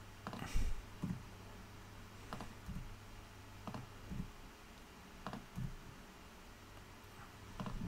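Computer keyboard keys and mouse buttons clicking, mostly in pairs every second or so, over a faint low steady hum.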